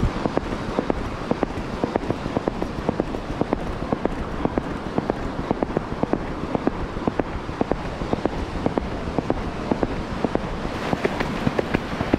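Horse's hoofbeats in a quick, steady rhythm at a canter or gallop, with wind rumbling on the microphone.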